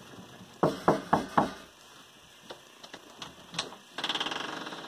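Four quick knocks on a wooden interior door, followed by a few faint clicks and, near the end, a short rattle that fades away.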